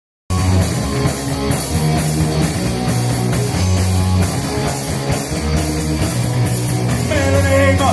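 Live rock band playing loud distorted electric guitar, bass guitar and a Premier drum kit; a singing voice comes in near the end.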